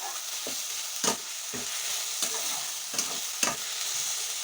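Onion, ginger and garlic paste frying in mustard oil in a kadai, sizzling steadily while it is stirred, with a short scrape of the utensil against the pan about every half second.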